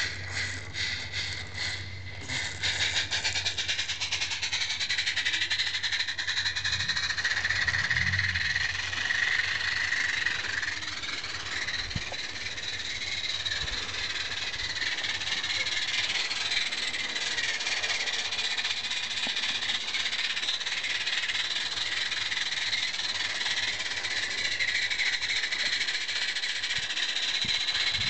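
Live-steam 16mm-scale Roundhouse garden-railway locomotive running under steam, its chuff pipe giving a rapid, even exhaust chuffing over a steam hiss.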